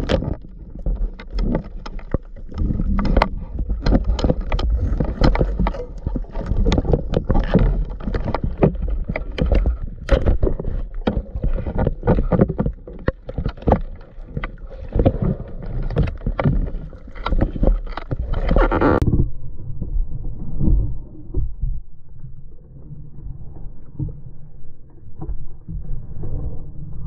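Water noise picked up through a speargun-mounted camera's waterproof housing: a low rumble and sloshing with many sharp clicks and knocks. About 19 seconds in the high end drops away and the sound turns quieter and duller.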